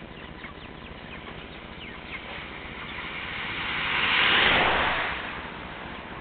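Broiler chickens giving short faint chirps, while a rushing noise swells to a peak about four seconds in and fades within about two seconds, the loudest sound here.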